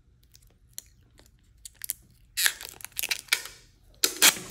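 Protective plastic film being peeled and crinkled off a clear polycarbonate and TPU phone case: scattered small crackles and clicks, then bursts of crackling tearing about two seconds in, with the loudest near the end.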